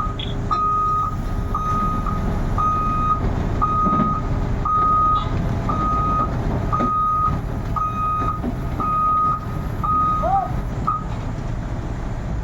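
Reversing alarm on heavy machinery beeping about once a second in a single steady tone, over the low rumble of a running engine; the beeping stops about eleven seconds in.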